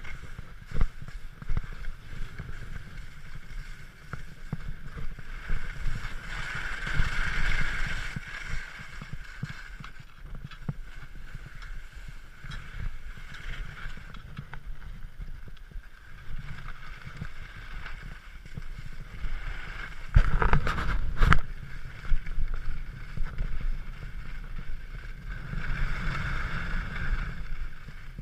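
Skis sliding and scraping over packed snow on a downhill run, a steady hiss with a low rumble that swells a few times and is loudest for a second or two about twenty seconds in.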